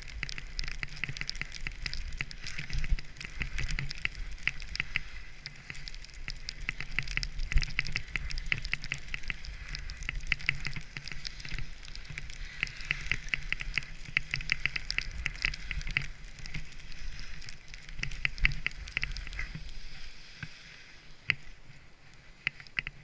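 Skis sliding and scraping over snow at speed, a dense crackling hiss with wind rumbling on the camera microphone. It eases off and goes quieter for the last few seconds as the skier slows.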